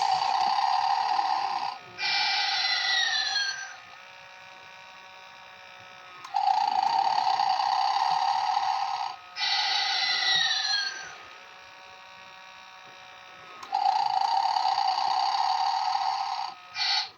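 Animated snoring Santa toy running its snore loop: a loud buzzy snore, then a whistling exhale with falling whistle tones, then a pause with only a faint steady hum. The cycle repeats about every seven seconds, three times, and cuts off right at the end.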